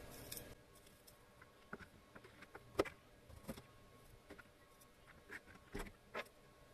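Faint, scattered small clicks and taps of a kitchen knife and fingers peeling garlic cloves over a plastic cutting board.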